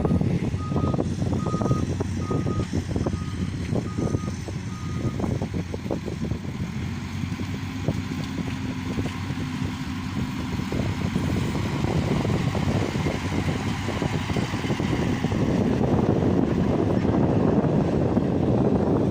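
Diesel engine of heavy earthmoving equipment running under work, with scattered clanks and knocks. A travel or reversing alarm beeps about once every 0.7 s for the first five seconds, then stops.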